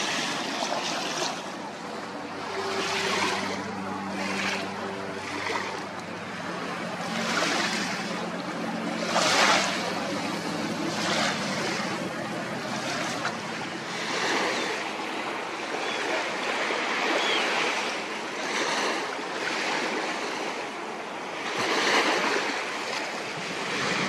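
Small sea waves washing up onto a sandy beach, in swells every couple of seconds. A faint low hum runs under them through the first half.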